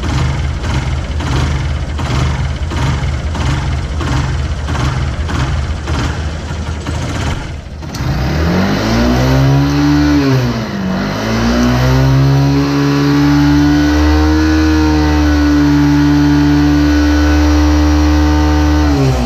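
Motorcycle engine idling with an even pulsing. About eight seconds in it is revved up, dips briefly, then is held at high revs and drops back near the end. It is running for a charging-voltage test at the battery, and the charging system is overcharging, at about 17 volts.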